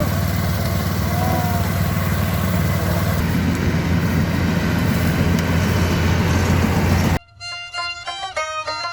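Yanmar AW70V combine harvester running steadily, a deep engine hum under a dense mechanical noise, cut off abruptly about seven seconds in by violin-led music.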